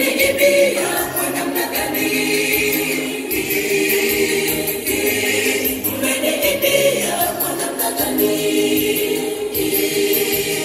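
A church congregation singing a gospel hymn together, many voices in a steady group song.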